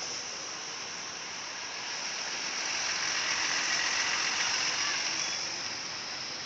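Roadside traffic noise: a motor vehicle's engine and tyres swell and fade as it passes, without the telolet horn sounding.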